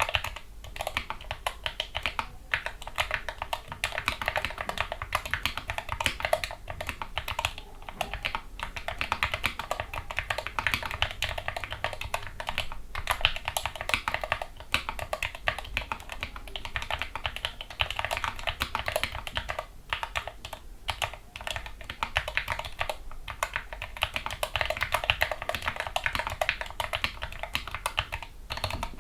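Continuous fast typing on a Gamakay MK61 mechanical keyboard with lubricated Gateron Yellow optical linear switches and foam dampening, a dense stream of key clicks and bottom-outs with a few brief pauses.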